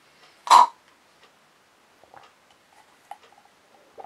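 A thick protein shake sucked up through a drinking straw: one short, loud slurp about half a second in, then a few faint clicks.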